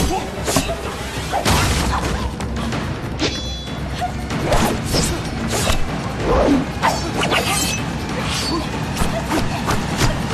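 Fight-scene sound effects: a rapid string of punches, blows and crashes over action music.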